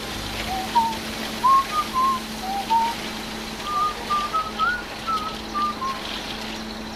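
A whistled tune: about a dozen short, slightly sliding notes rising and falling in a simple melody, over a steady hiss and a low hum.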